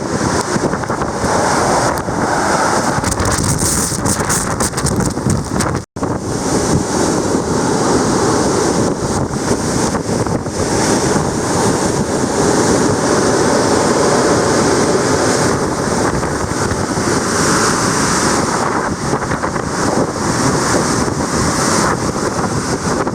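Typhoon wind and heavy rain battering the microphone: a loud, continuous roar that swells and eases with the gusts. It cuts out for an instant about six seconds in.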